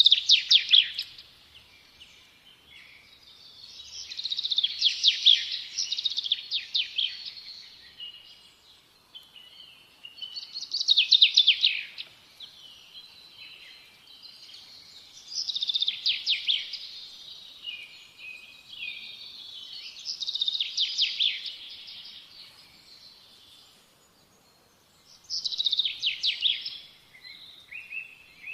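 Small songbirds singing: bursts of rapid, trilled song about every four to five seconds, six in all, with softer chirps in between.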